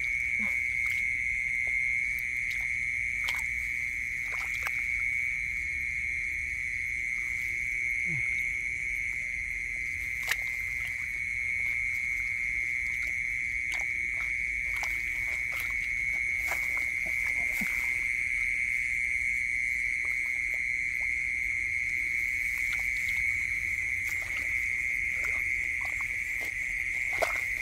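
A steady, high-pitched night chorus of calling creatures in the rice field, holding one even pitch throughout. Scattered short clicks and squelches come from hands working in the wet mud, the sharpest about ten seconds in.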